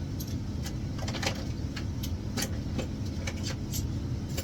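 Scattered light clicks and taps of metal tools being handled, over a steady low hum.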